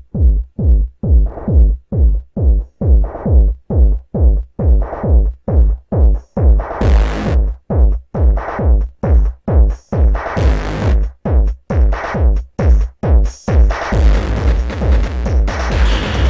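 Instrumental electronic music: a synth pulse with heavy bass repeating about twice a second, each note decaying before the next. Two cymbal-like swells come in about 7 and 10 seconds in, and near the end the track fills out into a denser, continuous sound.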